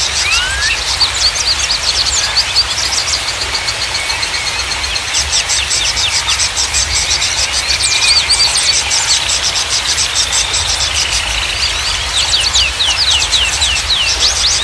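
Small songbirds chirping and trilling in fast, high-pitched series, with quick downward-sweeping whistled notes that come thickest near the end. Underneath runs a steady rushing noise and a low rumble.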